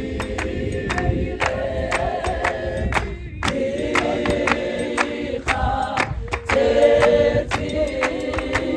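A choir singing in close harmony with a steady beat of sharp hand claps, in the South African clap-and-tap gospel style.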